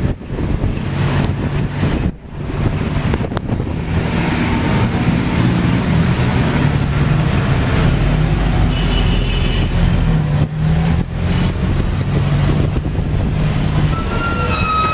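A tuk-tuk's small engine running steadily as it drives through city traffic, mixed with the noise of passing cars and a bus. The engine dips briefly about two seconds in, and a short high squeal comes near the end.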